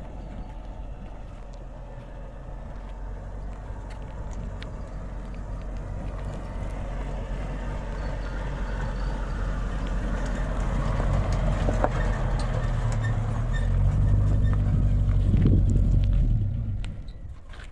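Pickup truck engine running as the truck drives closer, growing steadily louder, then cutting off abruptly near the end.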